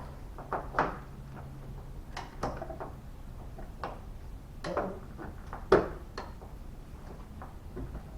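Irregular clicks and knocks of hand tools and metal parts being handled while fitting a car door handle, about half a dozen in all, the loudest a little before six seconds in. A low steady hum underneath stops about two seconds in.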